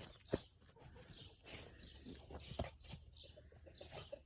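Farmyard birds calling faintly: chickens clucking and small birds chirping, scattered short calls. Two sharp knocks stand out, about a third of a second in and again past halfway.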